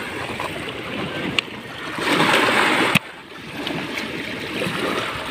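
Water running and washing over a stony shore, swelling for about a second near the middle, with a couple of sharp clicks.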